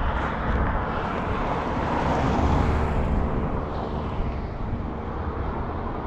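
A vehicle passing on the road, its tyre and engine noise swelling to a peak about two and a half seconds in and then slowly fading away.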